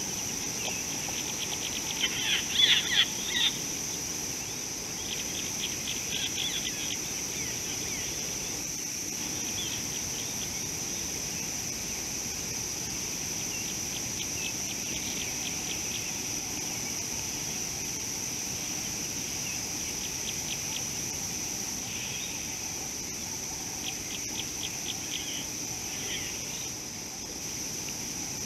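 A steady, high-pitched insect drone like a cricket chorus, with repeated short bursts of rapid chirping trills, the loudest about two seconds in and others around five, fifteen and twenty-five seconds in.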